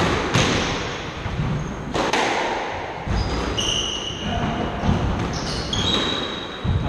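Squash rally: the ball is struck by rackets and hits the walls every second or two, each hit echoing in the court, with shoes squeaking briefly on the wooden floor a couple of times.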